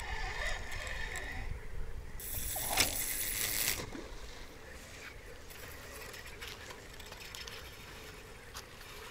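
A spinning reel is handled with a few mechanical clicks, then a heavy rod is cast: a swish and a hiss of line running off the spool for about a second and a half, starting about two seconds in. After that only faint background with an odd small click.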